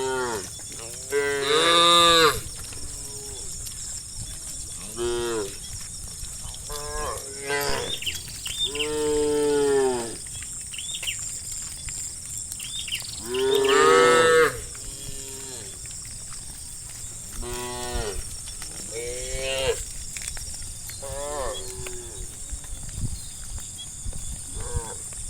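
A herd of cattle mooing, one call after another, some short and some long drawn-out, with the loudest long moos about two seconds, nine seconds and fourteen seconds in, over a steady high-pitched drone.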